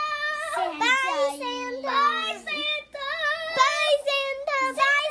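Young children singing without clear words in high voices, holding long notes, with a second, lower voice joining in for a moment about a second in.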